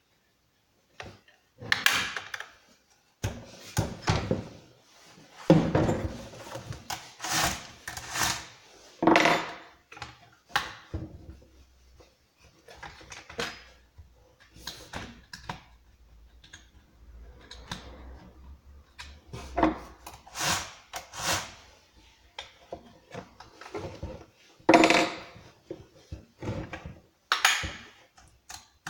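Hand assembly of a Husqvarna 455 Rancher chainsaw: irregular knocks, clicks and scraping of hard parts being handled and fitted together, with short pauses between.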